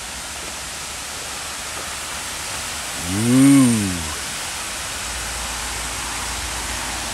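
Steady rush of river water spilling over a low concrete weir, a small waterfall. About three seconds in, a short hummed sound from a man's voice rises and falls in pitch over the water.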